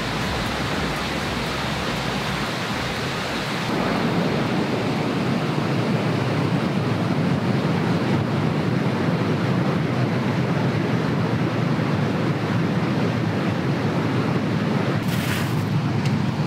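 A steady outdoor rushing noise with no tones in it, changing in tone about four seconds in.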